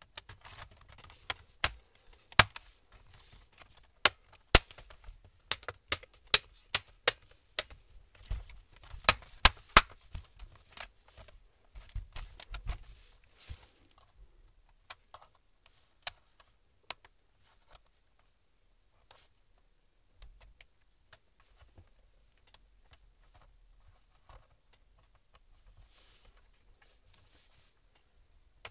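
Sharp plastic clicks and taps as the laptop's palmrest top cover is pressed down and snapped into its clips. They come thick and fast for about the first half, then thin to occasional small clicks as the ribbon-cable connectors underneath are worked.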